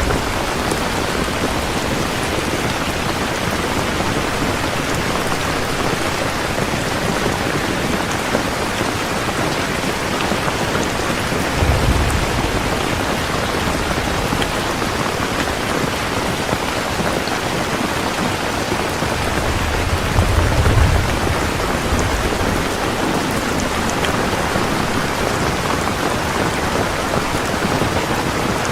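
Steady rain falling, an even hiss of drops on surfaces, with two low rumbles of thunder, about twelve seconds in and again about twenty seconds in.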